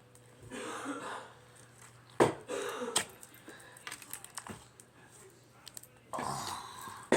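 Homemade slime squished and poked by hand: wet squelching and many small clicking pops, the 'clacky', crunchy noise of air pockets in the slime, with a sharp knock just over two seconds in.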